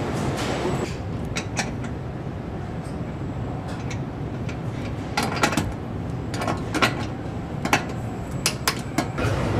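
Car assembly-line factory noise: a steady low hum with scattered sharp metallic clicks and clanks of tools and parts, coming in small clusters.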